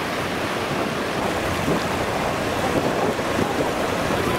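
Surf washing in over shallow water on a sandy beach, a steady rushing noise, with wind buffeting the microphone.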